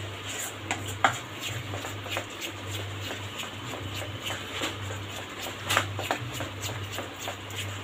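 Thick batter being mixed by hand in a stainless-steel bowl: irregular wet squishing with small clicks and knocks against the bowl, the sharpest about a second in and near six seconds. A steady low hum runs underneath.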